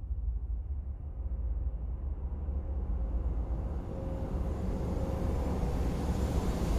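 Steady low engine rumble of an animated sci-fi spacecraft, slowly swelling, with a faint steady hum on top.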